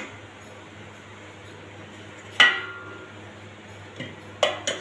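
Stainless steel pot lids clanking against the rims of steel pans as they are lifted off and set back: one sharp ringing clank about halfway through, then three quicker clinks near the end.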